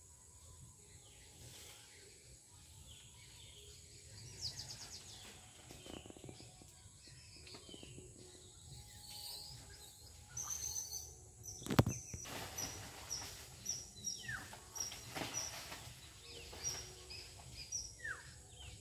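Outdoor background with birds calling: from about halfway a series of short high chirps, with a few falling calls mixed in, and one sharp knock just before the chirps pick up.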